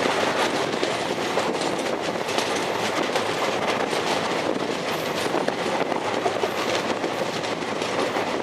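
Train running steadily along the rails, a continuous rumble with frequent wheel clicks over the track.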